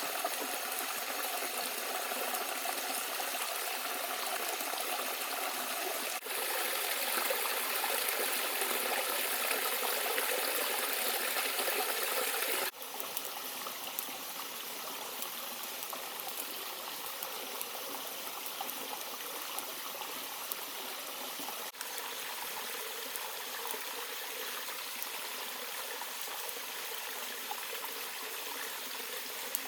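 Steady rush and trickle of running water, like a forest stream. It changes abruptly in level three times: louder from about six seconds in, softer again at about thirteen seconds, and a brief break at about twenty-two seconds.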